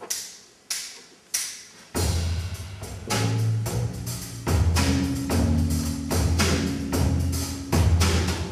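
Three evenly spaced sharp taps counting in, then a carol's instrumental accompaniment starts about two seconds in: a steady percussion beat over deep, held bass notes.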